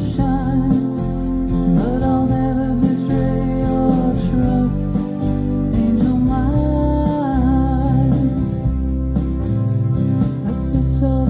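Music: a song with a singing voice over guitar and a steady low accompaniment.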